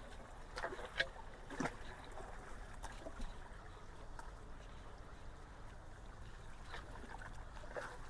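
Creek water rushing steadily into a partly clogged culvert, with scattered knocks and clicks as sticks are pulled from the debris jam.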